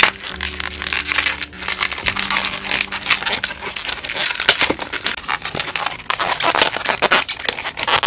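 Inflated latex modeling balloons being twisted and handled, a dense, continuous run of rubbery squeaks and crinkling rubs.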